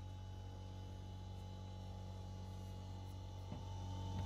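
Faint steady low hum, growing a little louder near the end.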